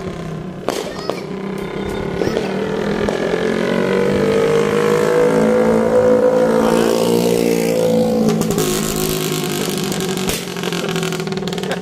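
Motorcycle engine passing close by: its pitch rises as it approaches, it is loudest about halfway through, then the pitch drops as it moves off down the street.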